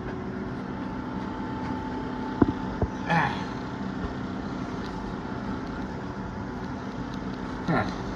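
A steady mechanical hum with a few held tones, a faint click about two and a half seconds in, and two short voice-like sounds, one about three seconds in and one near the end.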